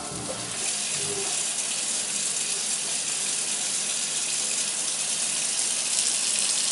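Kitchen tap running steadily, coming on about half a second in, as a green leaf lettuce leaf is rinsed under it.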